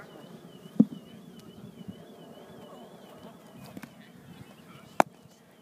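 A sharp crack of a cricket ball struck off a yellow training bat about five seconds in, after a duller knock about a second in.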